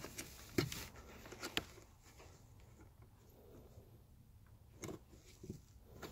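Hand working on plastic parts inside a car door: a few scattered sharp clicks and knocks, about two in the first second and a half and two more near the end, with light rustling between.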